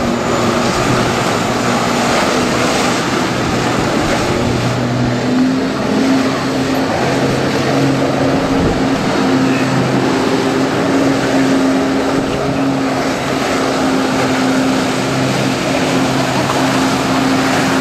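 Motorboat engine running steadily, its hum wavering slightly in pitch, over a loud wash of water and wind noise.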